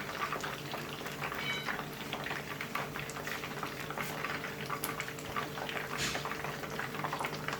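Hot oil sizzling and crackling steadily as battered chicken tempura pieces fry, over a steady low hum.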